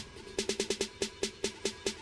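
Electronic workout music with a steady drum beat. After a short lull, the drum hits come about twice as fast, some with a pitched note, from about half a second in.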